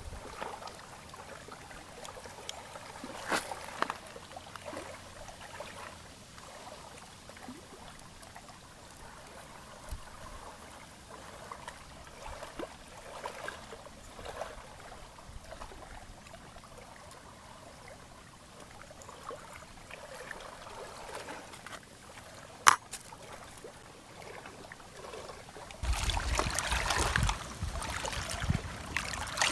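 Faint water trickling and lapping, with scattered small clicks and taps of handling and one sharp click past the middle. Near the end a much louder, steady rush of running water starts.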